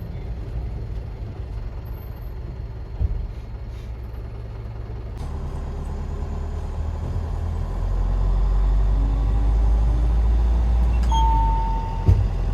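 Dual-mode vehicle (DMV) minibus running: a steady low engine rumble that grows louder about halfway through, with a short beep and a knock near the end.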